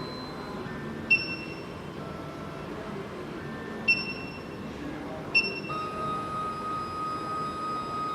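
SEC E9 key-cutting machine's touchscreen beeping at three button presses, each a sharp tap with a short high beep. Then a steady single tone begins about two-thirds of the way in and holds.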